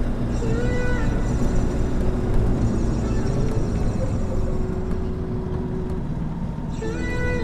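Aixam City GTO microcar's engine and drivetrain running steadily, heard from inside the cabin while driving, with road noise and a short whining tone that bends in pitch near the start and again near the end.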